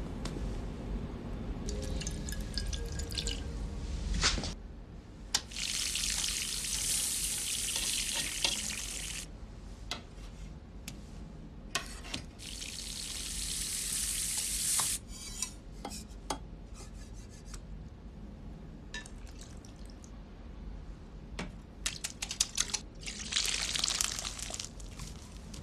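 Kitchen cooking sounds: two long stretches of hiss, scattered sharp taps of a knife on a wooden cutting board, and beaten egg poured into a frying pan near the end.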